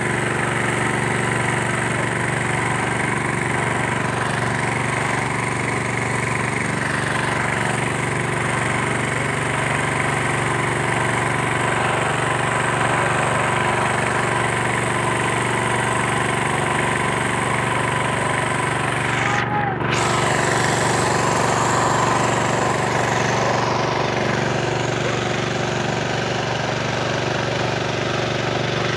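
A motor running steadily with a constant, even drone and no changes in pace.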